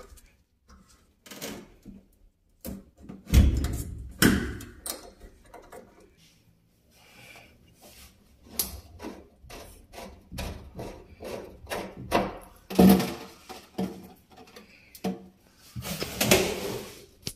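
Locking pliers working loose the black nut that holds a kitchen faucet under the sink: irregular clicks, knocks and scraping of metal jaws on the nut and fittings, with a few louder knocks.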